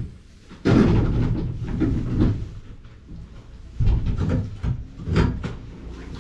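Bursts of clattering knocks and scraping from mucking-out work: bedding being shifted and metal pen fittings being knocked, in three spells with quieter gaps between.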